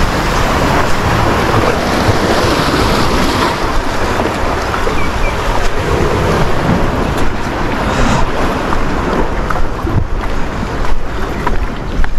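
Sea waves washing against a rocky shore, with wind buffeting the microphone in a steady rush of noise.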